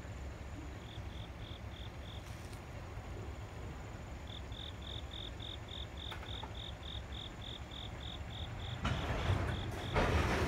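Freight train tank cars rolling past, a steady low rumble, with a cricket chirping in short even pulses about four a second over it. A louder rushing noise comes in near the end.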